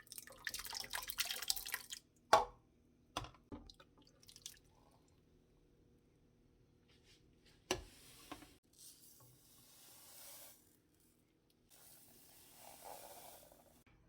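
Water splashing and dripping in short spells, with a few sharp knocks, the loudest about two seconds in.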